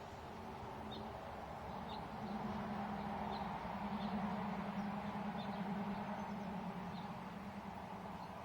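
Hummingbird hovering close by: a steady wing hum that swells a couple of seconds in and eases off near the end, with short high chips about once a second.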